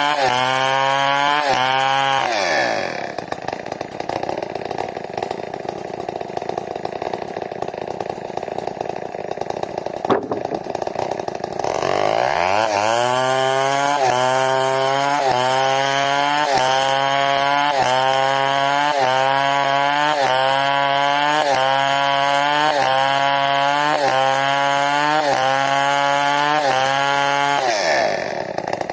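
New West 070 two-stroke chainsaw ripping a log into a beam, running under load with its pitch rising and falling in regular pulses a little over once a second. A couple of seconds in it drops off to a lower, quieter running, revs back up about twelve seconds in, cuts again, and drops off once more near the end.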